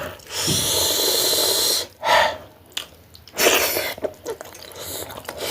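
A person blowing out hard, hissing breaths through the mouth while eating very hot akbare dalle chillies: two long breaths with a short sharp one between them, a reaction to the chilli heat.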